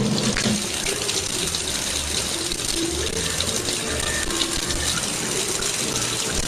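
Steady rush of running water, like a tap running, with faint voice-like sounds over it.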